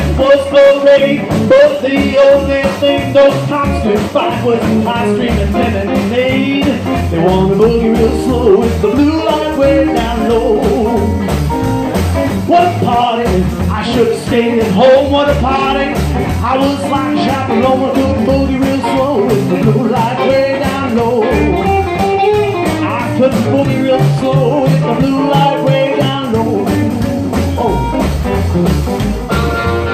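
Live blues band playing an uptempo boogie: electric guitar, upright double bass and drums, with the frontman playing a harmonica cupped against his microphone, its long bending notes over the band.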